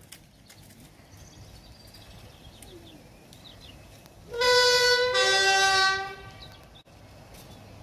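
Class 31 diesel locomotive 31289 sounding its two-tone horn as it approaches: two loud blasts almost back to back, a higher note then a lower one, each under a second.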